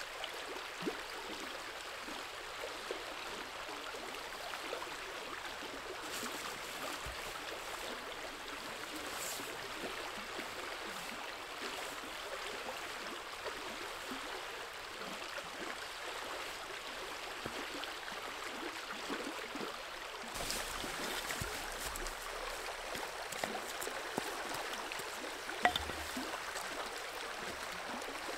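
Fast-flowing river rushing over rocky rapids, a steady, unbroken rushing. A few faint clicks and knocks are scattered through it.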